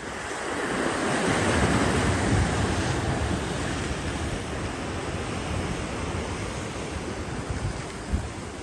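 Sea surf breaking over shore rocks: a wave's rush builds over the first couple of seconds, then slowly washes back and fades.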